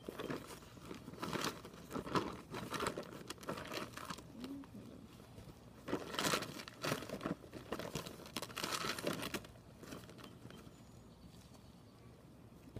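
Rustling, crinkling and scraping as gloved hands dig through the soil of a fabric potato grow bag, in irregular bursts that are busiest in the first few seconds and again around the middle, then thin out near the end.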